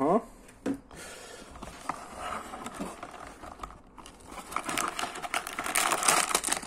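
Plastic bags of Lego parts crinkling and rustling against the cardboard as they are slid out of the opened box, growing louder over the last two seconds.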